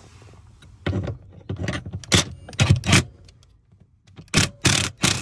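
Short bursts of metal clinking and rattling from a socket on a Ryobi 18V impact tool being worked onto a car seat's mounting bolt: four quick bursts, a pause, then three more near the end.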